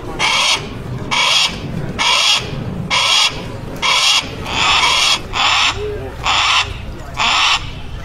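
Hawk calling: a series of harsh, raspy screeches, about one a second.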